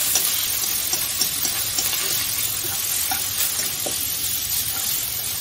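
Shredded ham and sliced onion sizzling in hot oil in a wok as they are stir-fried: a steady hiss with occasional light taps of the chopsticks against the pan.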